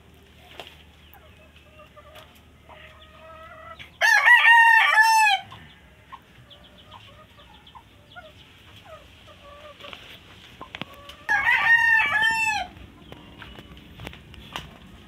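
A rooster crows twice, about four seconds in and again about eleven seconds in, each crow a loud call of about a second and a half. Hens cluck softly between the crows.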